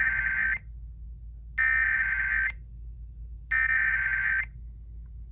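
Emergency Alert System SAME header: three bursts of rapid two-tone digital data, each about a second long and a second apart, announcing the start of a flash flood warning. A faint low hum sits underneath.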